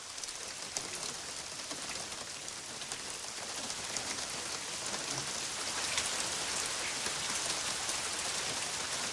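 Heavy rain pouring down, a steady hiss that grows slightly louder over the seconds.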